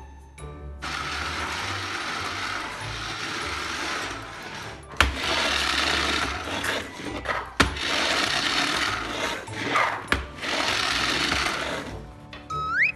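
Minnie Mouse toy vacuum cleaner running, its small battery motor whirring and churning the loose beads in its clear canister. It stops briefly three times, with sharp clicks at two of the restarts, and cuts off near the end.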